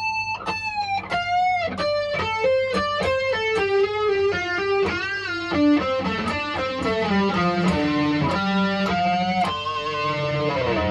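Ibanez JEM electric guitar playing a lead solo passage: a held bent note, then a quick run of single notes stepping mostly downward with bends along the way, and long held notes that slide near the end.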